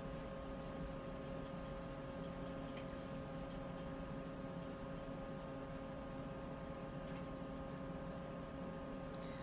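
Quiet room tone with a steady electrical hum, broken by a couple of faint clicks.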